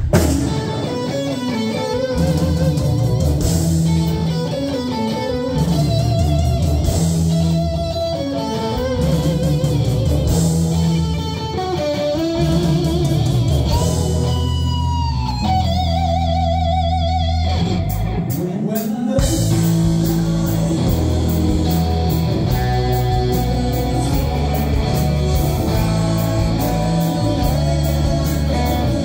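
Live rock band: a Sky Guitar plays a singing lead melody with wide vibrato over bass guitar and drums. About halfway through, the lead climbs in long slides, and after a short drum break the full band comes back in.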